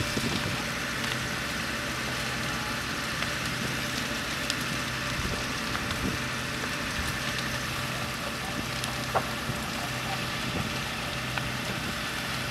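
Large thatched-roof farmhouse fire burning: a steady rushing noise with a few sharp crackles and pops. A steady engine hum runs underneath.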